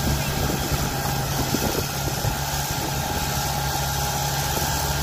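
Diesel engine of a small crawler dozer running steadily with its blade pushed into dirt, an even low hum with no changes in pitch.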